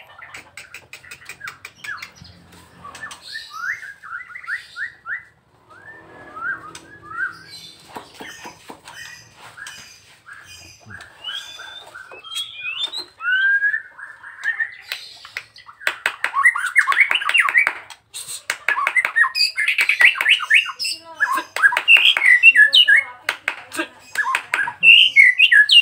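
A caged white-rumped shama (murai batu, Nias type) in full song: series of short repeated whistled notes, then louder, more varied phrases from about two-thirds of the way through.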